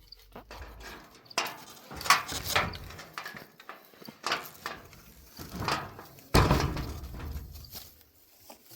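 A series of irregular thumps and rustles, about six or seven, the loudest about two seconds in and again past six seconds, each with a low rumble under it.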